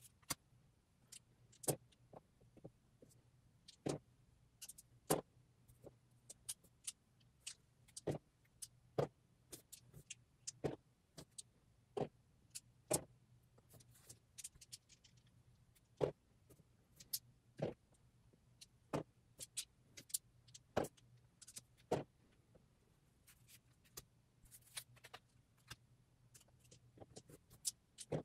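Scattered light clicks and taps, about one every second or so, of small plastic eight-sided dice being shaken in the hand, rolled and set down, and of plastic miniature bases placed on a play mat.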